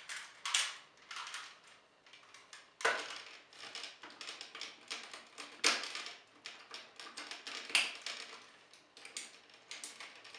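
Hard plastic parts of a transforming Megazord toy robot being handled and reconfigured: a run of small clicks and rattles, with a few sharper snaps spread through.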